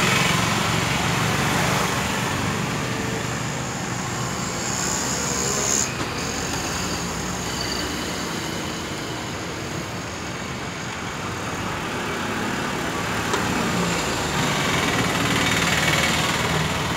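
Mysore bhajji deep-frying in a large kadai of hot oil, sizzling steadily over a constant wash of road traffic.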